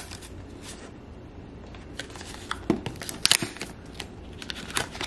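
Cardboard packaging of an Apple silicone phone case being pried open: scattered scrapes, clicks and paper rustling as the snug-fitting case is worked out of its box, busiest a little past halfway and again near the end.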